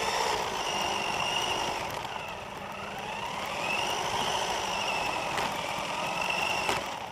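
RC car's motor and drivetrain whining, the pitch rising as it speeds up, holding, then falling as it slows, twice over, with tyre and ground noise under it. Two sharp knocks come in the second half.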